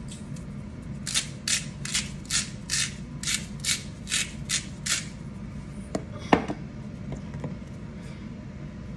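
Hand-twisted spice grinder grinding over a skillet, about ten short raspy strokes over four seconds, followed by a single sharp knock.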